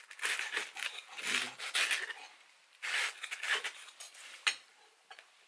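Cardboard takeaway boxes rustling and scraping as pizza slices are pulled out by hand, with a fork clicking against a plate; an uneven run of short scrapes and clicks that thins out near the end.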